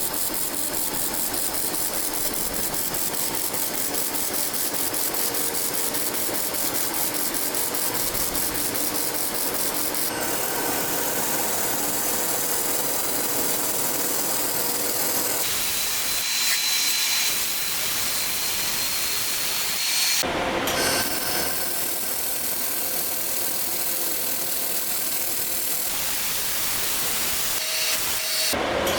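Handheld laser welder laying dual stainless-steel filler wire in a pulsed scale-weld mode: a steady hiss with a rapid, even pulsing through the first part. The sound shifts abruptly a few times.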